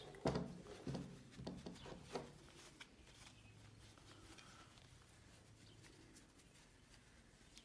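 Faint handling of a Glock pistol's slide: a few light clicks and knocks in the first couple of seconds, then quiet rubbing as a cloth wipes the slide.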